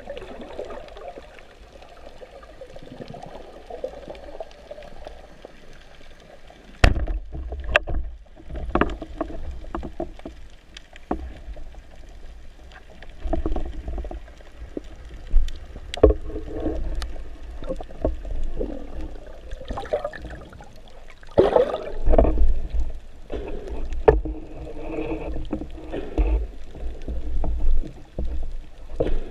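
Underwater sound picked up by a camera in its waterproof housing: low rumbling water movement with many sharp clicks and knocks from the speargun and the diver's hands handling a speared red mullet. A sharp crack about seven seconds in, after which the rumbling is louder.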